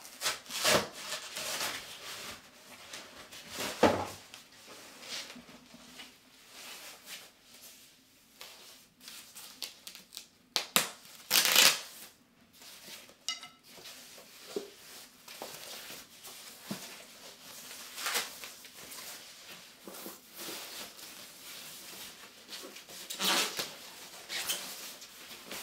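Packaging being handled and pulled off a model jet wing as it is unpacked: irregular rustling, crinkling and tearing, with several louder rustles spread through.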